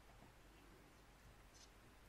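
Near silence: room tone, with one faint rustle of hands handling a power cord about one and a half seconds in.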